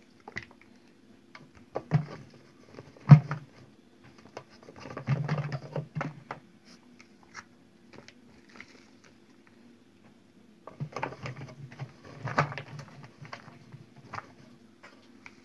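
Sliced green peppers being dropped and packed into a large glass pickling jar: scattered taps, knocks and rustling against the glass in three bunches, the sharpest knock about three seconds in. Near the end a wooden masher pushes the peppers down inside the jar.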